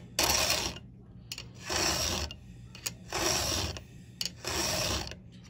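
Round chainsaw file rasping across a saw chain's cutter tooth in four even strokes, about one every second and a half.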